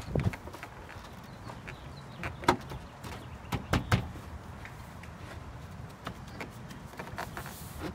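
A handful of short clicks and knocks as a Toyota Tacoma's door trim panel is handled and pressed into place on the door, the loudest about two and a half seconds in and a few around three and a half to four seconds.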